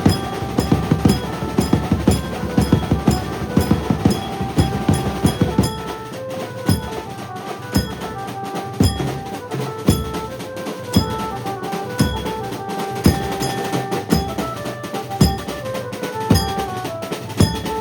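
Maharashtrian banjo band playing loud procession music: drums and cymbals beating a fast, steady rhythm under an amplified banjo melody of held notes.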